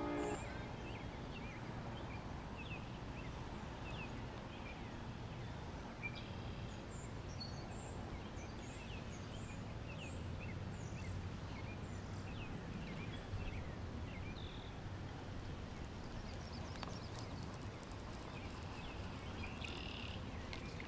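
Outdoor pond-side ambience: many short bird chirps scattered over a steady low background rumble, with a few faint ticks near the end.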